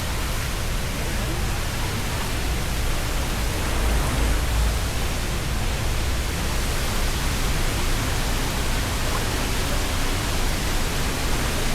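Waterfall: the steady rush of heavy falling water, an even hiss with a deep rumble underneath.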